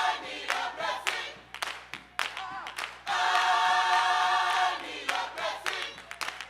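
Gospel church choir singing in long held chords, one held from about three seconds in until nearly five seconds, with short sharp hits in the gaps between chords.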